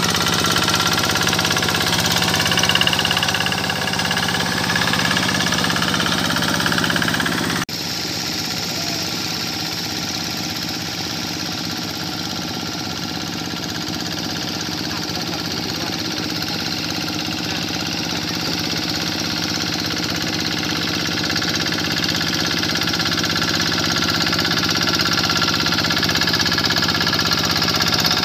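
Quick G1000 Boxer two-wheel hand tractor's single-cylinder diesel engine running steadily under load through a very long upright exhaust pipe, as the tractor tills a flooded rice paddy. About a third of the way in the sound changes abruptly and is a little quieter afterwards.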